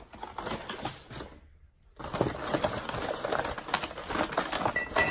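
Rapid rustling and crackling of packing material as small ceramic pieces are unpacked from a box, broken by a brief silence about a second and a half in, with a short high ring near the end.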